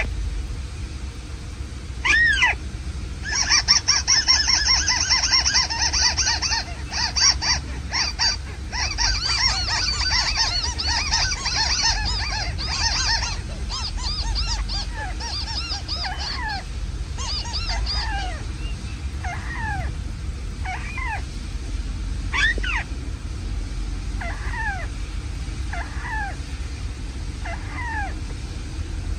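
Bird calls played as a trapping lure: a dense chattering with high trills for about ten seconds, then single descending calls repeated roughly once a second.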